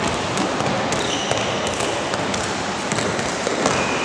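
Basketball being dribbled on a court, the bounces as short sharp knocks over a steady hall noise. Brief high squeaks, most likely sneakers on the court, come about a second in and again near the end.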